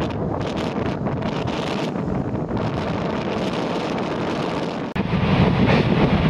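Strong sea wind buffeting the microphone over the wash of surf. Near the end the noise jumps suddenly louder, with a click.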